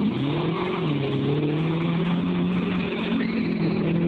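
Lifted pickup truck's engine revving hard: the pitch climbs over the first half-second, then holds steady at high revs.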